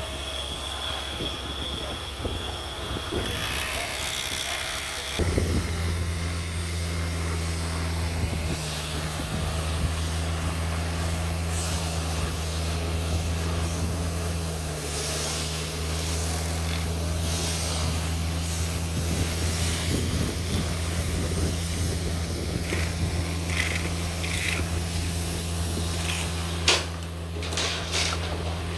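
An engine running steadily with a low, even hum that sets in about five seconds in, with a few sharp clicks near the end.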